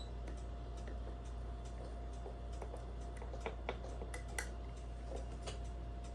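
Faint, irregular light clicks and scrapes of a homemade lever pick and tensioner working inside a five-lever lock as the levers are felt for, with one sharper click a little past the middle.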